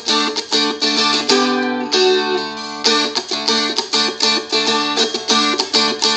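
Seagull Merlin, a four-string fretted dulcimer, strummed on an open D chord in quick, even strokes following the song's 'doot doot doot' rhythm, with the chord left ringing briefly about a second and a half in.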